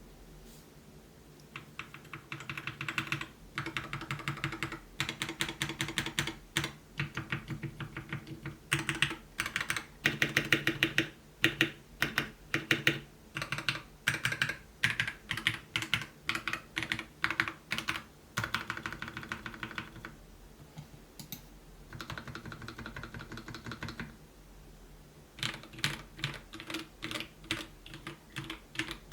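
Typing on a KPRepublic BM65, a 65% mechanical keyboard with hot-swap switches: fast runs of key clicks lasting a few seconds each, broken by short pauses.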